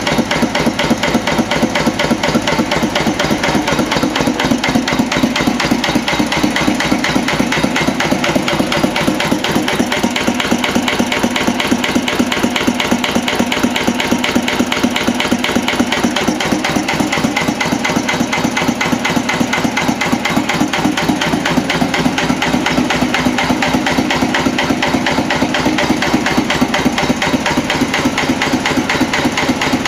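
National DSSH single-cylinder oil (diesel) stationary engine, c.1943, running steadily with a rapid, even knocking beat.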